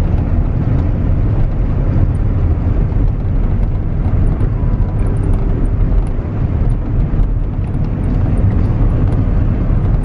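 A car driving, heard from inside the cabin: a steady rumble of engine and tyre noise.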